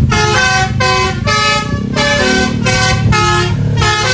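Indonesian "telolet" bus horn playing a quick tune of stepped multi-tone horn notes, one after another, over a steady low engine rumble.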